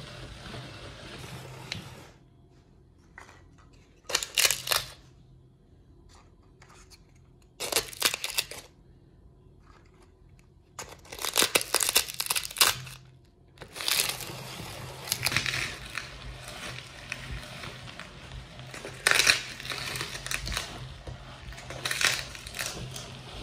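Crisp mini ice cream cones being crunched and crushed in a meat grinder: scattered bursts of crackling with quiet gaps at first, then almost continuous crunching through the second half.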